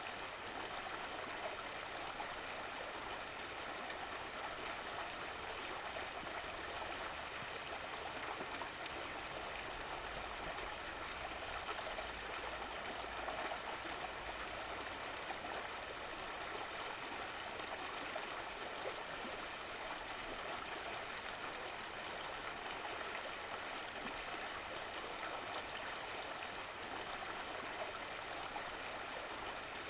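Stream of running water flowing steadily, a constant even rush with a light trickle.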